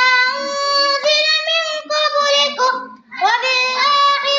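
A child's high voice reciting the Quran in a melodic chanted style, holding long notes that slide up and down, with a short pause for breath about three seconds in.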